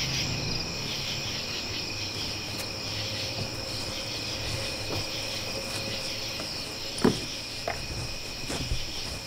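Night-time chorus of crickets trilling steadily, with a single short knock about seven seconds in.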